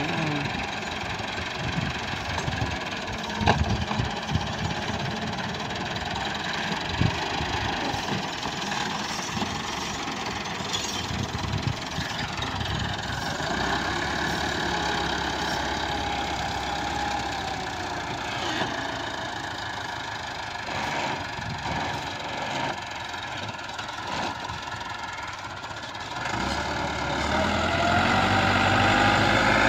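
Tractor engine running steadily under load as it pulls a rotary tiller through ploughed soil, rising in pitch and getting louder near the end.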